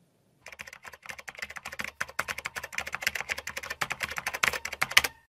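Typing sound effect: a fast, unbroken run of key clicks, many a second, that stops abruptly about five seconds in.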